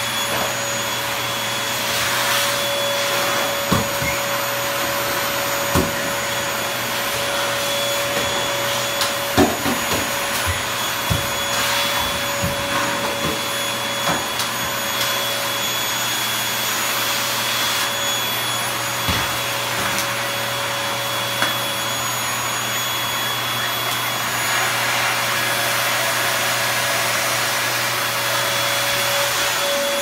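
Vacuum cleaner running steadily, its motor whine holding one pitch over an even rushing noise. A few brief knocks and clicks break through now and then, the loudest about nine seconds in.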